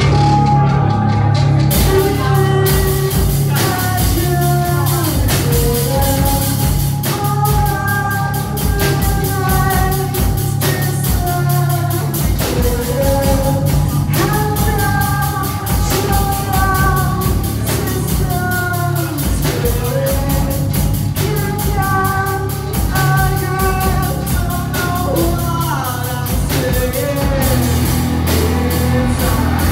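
Live rock band playing a song: sung lead vocals over electric guitars and a drum kit.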